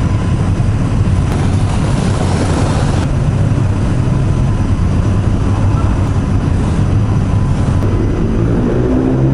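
Steady low rumble of engines on a ferry's enclosed vehicle deck as vehicles drive off. Near the end one engine rises in pitch as it pulls away.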